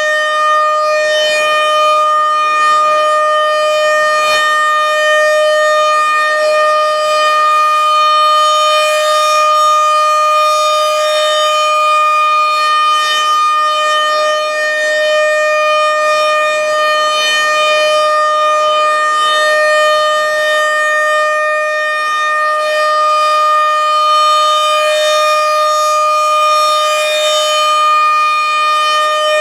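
RM-130 outdoor warning siren sounding a loud, steady tone at one fixed pitch during its scheduled test.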